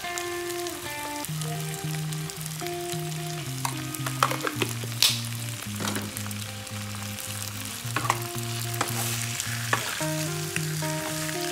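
Eggplant and okra frying in a wok with a steady sizzle, with a few sharp taps about four to five seconds in and a wooden spatula stirring the vegetables near the end. A simple melody of background music plays over it.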